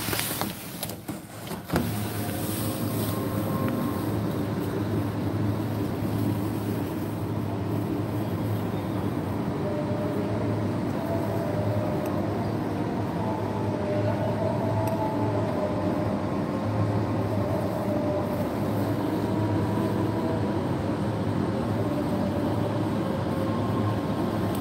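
Steady low rumble of a moving vehicle heard from inside the cabin, starting suddenly under two seconds in and holding even.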